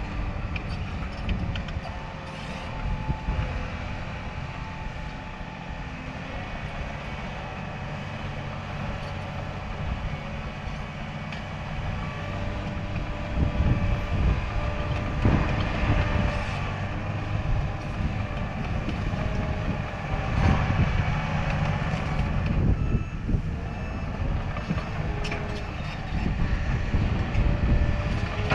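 Bulldozer's diesel engine running and working, getting louder in several surges through the second half.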